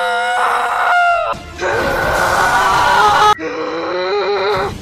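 A cartoon boy's drawn-out, straining shouts of effort, voiced by a woman, over background music; a sudden cut about three and a half seconds in starts a second held shout.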